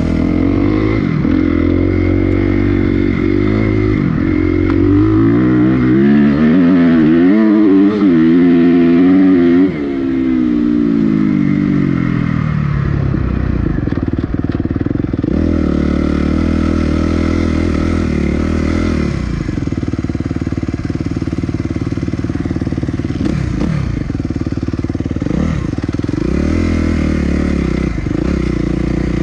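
2021 Suzuki RM-Z250 dirt bike's four-stroke single-cylinder engine, heard from on the bike while riding: the revs climb and hold high from about five to ten seconds in, drop sharply, then rise and ease off again several times.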